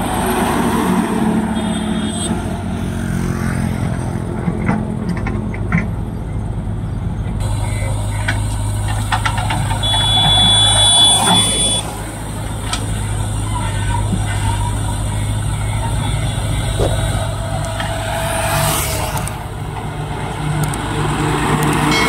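Diesel engines of heavy multi-axle trucks and a JCB 3DX backhoe loader running steadily as the trucks pass slowly, with a few clicks and a short hiss about three-quarters of the way through.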